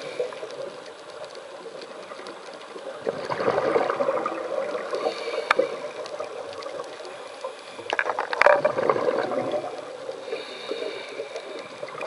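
Scuba regulator breathing heard underwater: two gurgling rushes of exhaled bubbles, about five seconds apart, with a couple of sharp clicks.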